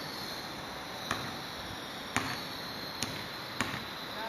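Sharp, irregular clicks or taps, four of them from about a second in, over a steady thin high-pitched whine and background hiss.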